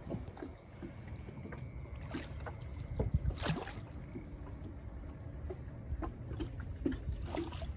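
Small boat moving on floodwater: a steady low rumble with a few short sharp sounds at uneven intervals.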